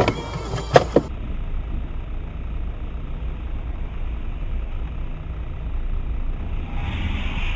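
A few sharp knocks in the first second, then the steady low drone of a car's engine and road noise.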